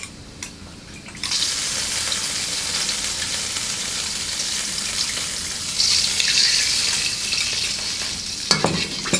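Stir-fry sauce poured into a wok of hot oil and garlic, starting to sizzle suddenly about a second in and sizzling steadily as it cooks. Near the end a metal wok spatula scrapes and clacks against the wok.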